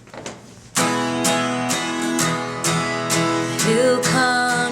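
Song intro: an acoustic guitar strummed in a steady rhythm, about two strums a second, starting abruptly just under a second in. Near the end a second line with sliding notes comes in over the strumming.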